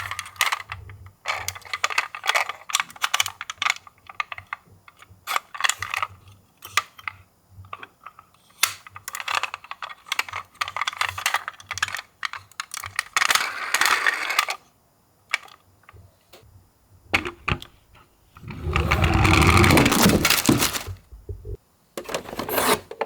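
Die-cast Tomica toy ambulance minicars clattering, with many small hard clicks and knocks as they roll down a slope and drop. There are two longer rolling runs, one about two-thirds through and a louder one near the end.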